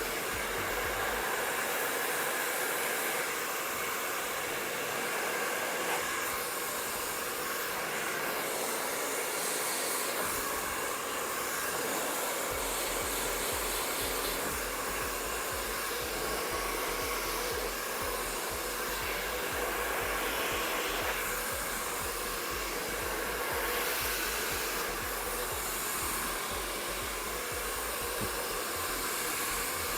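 MQ Pro Digital 2600-watt professional hair dryer running steadily during a blow-dry: a continuous rush of air with a faint whine, swelling slightly now and then.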